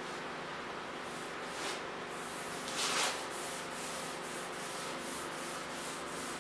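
Cloth rubbing along the walnut frame of a door as finish is wiped on, in quick repeated strokes with one louder swipe about three seconds in.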